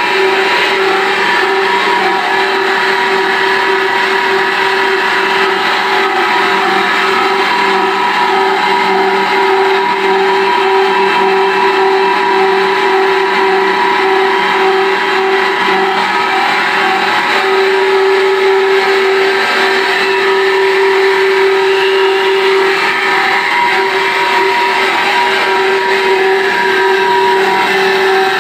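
Cross-flow water turbine and its generator running steadily. A loud, even mechanical hum with a strong constant whine sits over a rushing noise.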